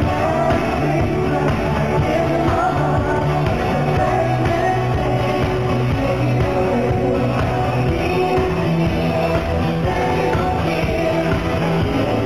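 Background music: a song with singing over a steady band accompaniment.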